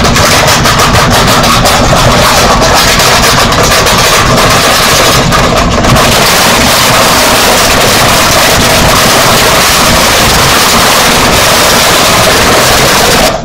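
Deliberately overdriven 'earrape' audio: a continuous harsh wall of clipped, distorted noise at full loudness, crackling through the first half and dropping off abruptly at the end.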